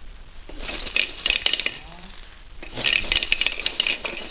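Hard plastic clicking and rattling of a child's ride-on toy truck as a baby's hand works its knob and pats its hood, in two runs of quick clicks, starting about half a second in and again near three seconds.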